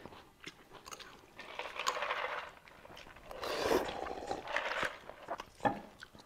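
Eating sounds: spaghetti being slurped and chewed, with scattered small clicks. The loudest slurp comes a little past the middle.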